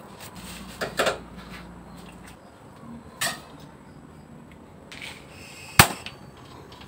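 A few scattered sharp knocks and clatters, the loudest about six seconds in, over a faint background.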